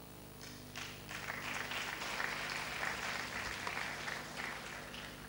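Audience applauding, starting about half a second in, building, then fading out near the end. A steady electrical hum runs underneath.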